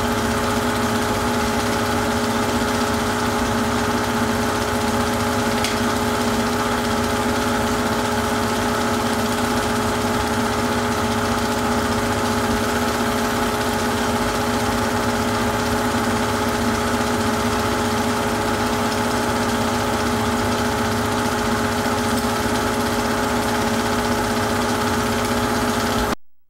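Super 8 film projector running: a steady mechanical hum and whir with a constant pitch that cuts off abruptly at the very end.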